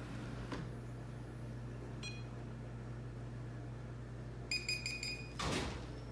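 Electronic beeps from a robot vacuum: one short beep about two seconds in, then a quick string of about six beeps near the end, followed by a brief burst of noise, over a steady low hum.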